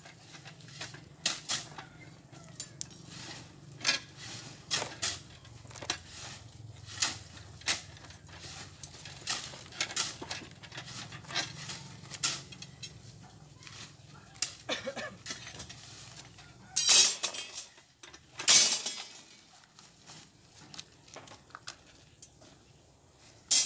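Steel rebar clinking and clanking against the steel pins of a wooden bending bench as it is bent by hand with a bending tool: irregular sharp metallic clinks, with two louder, longer rattles about 17 and 18 seconds in.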